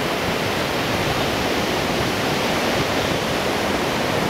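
Ocean surf breaking and washing up onto a sandy beach, a steady, even noise of water.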